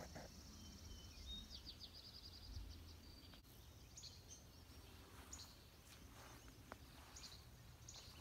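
Faint songbirds: a short rapid trill about a second and a half in, then scattered brief high chirps, over a low steady background rumble.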